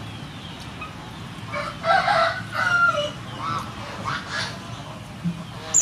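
A rooster crowing about two seconds in, followed by a few shorter calls.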